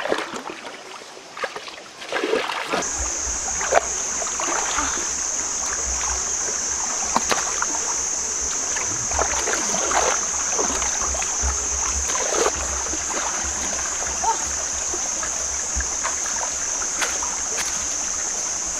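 Hands splashing and sloshing in a shallow rocky stream while groping along the bottom for fish, with irregular splashes throughout. From about three seconds in, a steady high-pitched drone and a low rumble run underneath.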